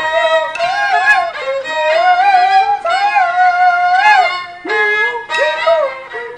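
Peking opera music: a fiddle, likely the jinghu, plays a melodic line with long held, wavering notes and slides, with a short break about four and a half seconds in.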